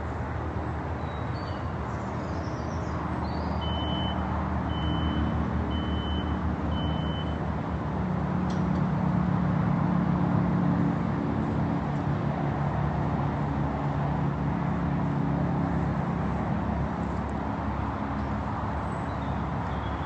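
Heavy machinery engine running steadily, growing louder around the middle, with four short high beeps of a motion alarm about a second apart about four seconds in.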